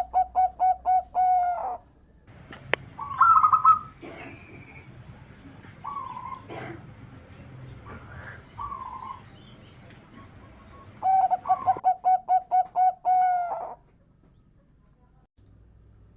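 Zebra dove (perkutut) singing its staccato cooing song, a fast run of about ten short notes over two seconds or so. It sings once at the start and again about eleven seconds in, with softer, higher short calls in between.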